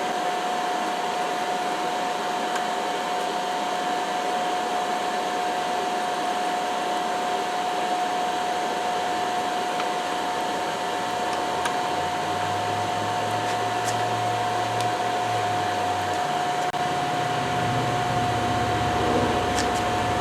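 Forge running: a steady rushing noise with a constant whine, as a leaf-spring knife blade heats to non-magnetic for normalizing. A lower hum joins in for a few seconds past the middle.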